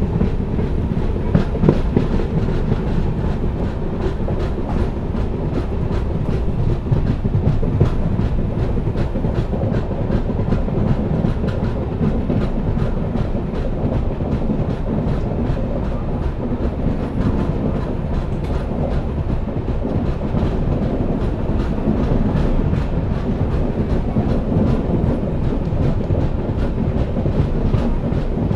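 Passenger train running at speed, heard from an open coach window: a steady rumble of wheels on the rails with rapid clicks as the wheels cross rail joints.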